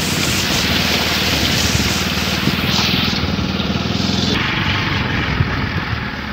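Small motorcycle engine running steadily while riding, with a loud hiss over it that eases about four seconds in.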